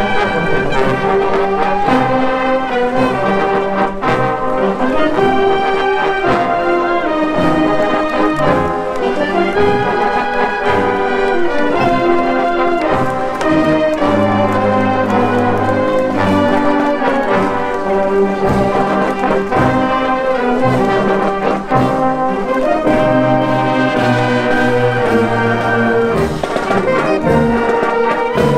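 Marching band playing on the move: trumpets, saxophones and sousaphones carry a tune over a low bass line and steady percussion hits.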